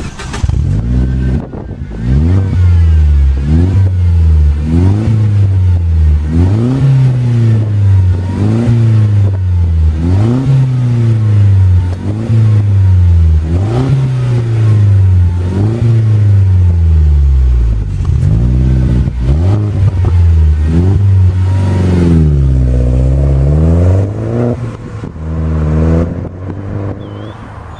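Citroën DS3 1.6 THP turbocharged four-cylinder petrol engine revved in repeated blips through a Cobra resonated cat-back exhaust, the pitch rising and falling about once every second and a half, with one longer, slower swing near the end.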